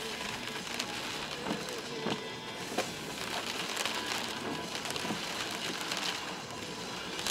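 Steady road noise inside a Toyota Land Cruiser 120 driving slowly on an unpaved forest track, with a light crackle of the tyres over loose ground and scattered small knocks.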